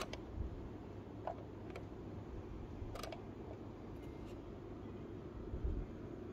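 Handling noise from a hand on a diecast model car and its cardboard box: a few light clicks and taps, and a soft thump near the end, over a steady low hum.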